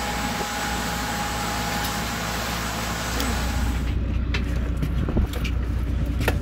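Boat engine running steadily under a wash of hiss. About four seconds in the sound changes to a deeper rumble with scattered knocks and clicks, and a sharp knock near the end.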